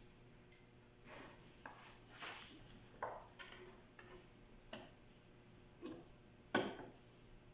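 Scattered light clicks and knocks of photocopier drum-unit parts being handled, about eight in all, the loudest about six and a half seconds in.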